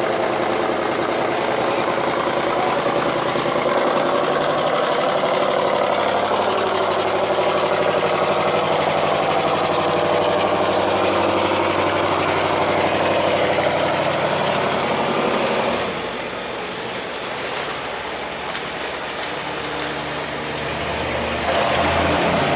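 Tugboat engine running steadily. It drops a little in level about 16 seconds in and picks up again near the end.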